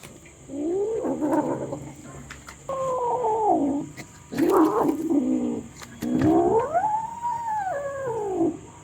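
A cat yowling: four drawn-out calls, each bending up and down in pitch, the last one the longest.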